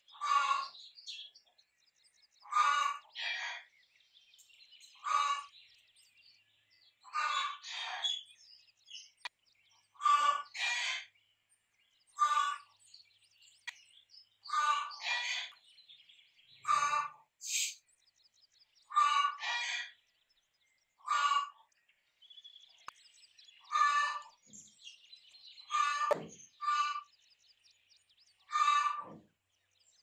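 Rooster giving its agitated call: a string of short calls, often in quick pairs, repeating every second or two. Faint small-bird chirping sounds behind it.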